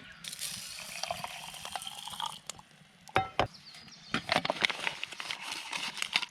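Water being poured into a container, its pitch rising as the vessel fills, for about two seconds. Then come several light clinks and knocks of cookware, one of them ringing briefly.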